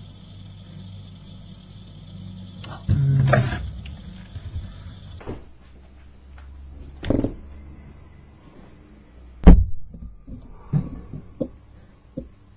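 Breakfast things being handled in a kitchen: scattered knocks and rustles over a low steady hum, with one sharp knock, the loudest, about two-thirds of the way through, then a few small clicks.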